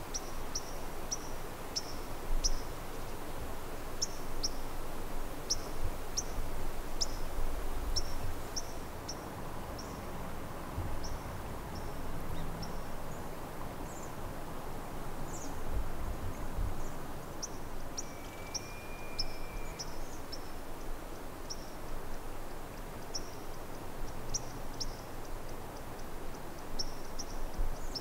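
Wilderness ambience: a small bird gives short high chirps, repeating irregularly about one or two a second. A single thin, steady whistle sounds briefly about two thirds of the way through. Beneath them runs a low background rumble.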